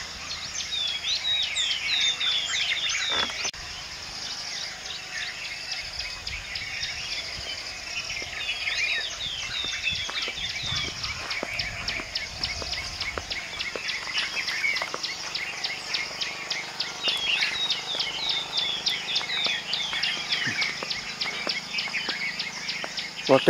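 Many birds chirping, a dense run of short falling notes, over a steady high insect trill.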